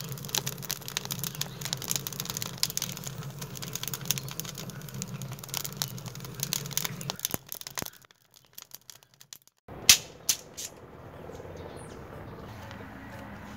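Dense, irregular crackling of a wood fire over a low rumble, stopping after about seven seconds. After a short quiet gap come a few sharp knocks and then a faint steady background.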